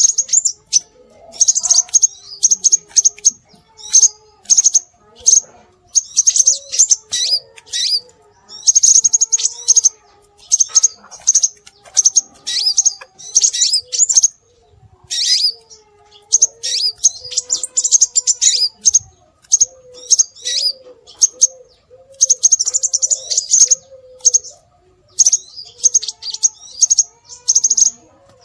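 Recorded calls of the scarlet minivet (sepah raja) played as a bird-luring track: bursts of high, rapid chirps repeating every second or so with short gaps, over a fainter, lower wavering call.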